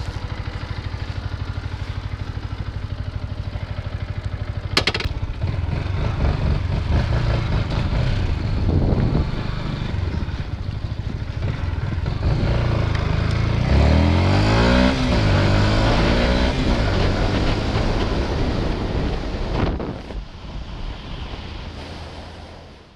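Yamaha MT125's 125cc single-cylinder four-stroke engine idling with a steady pulse, then pulling away, its pitch rising and falling as it revs through the middle. It fades near the end and cuts off suddenly.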